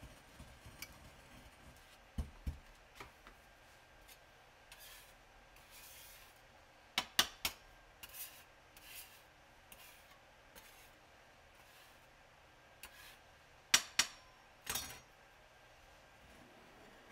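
Muller scraping and rubbing dry powder across a glass slab: a quiet gritty rubbing broken by sharp clicks and knocks against the glass, two low knocks early, a cluster of three about seven seconds in, and more near the end.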